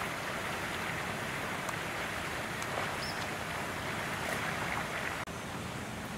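Steady rushing outdoor background noise, with a few faint clicks.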